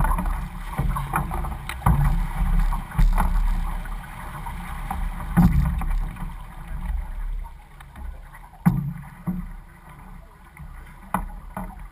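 Water sloshing and lapping along an outrigger canoe's hull as it glides with the paddling stopped, with low wind rumble on the microphone. Scattered sharp knocks and splashes come through, and the water noise grows quieter in the second half.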